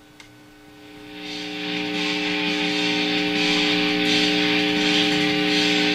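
Music from a CD player played through a Fender Bandmaster tube amp's speaker with no wired connection: an infrared LED carries the signal as light into the amp's input. It fades in about a second in and then holds steady over a background hiss.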